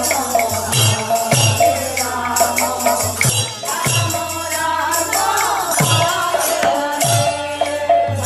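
Devotional kirtan music: group singing over low hand-drum strokes and continuous jingling metal percussion.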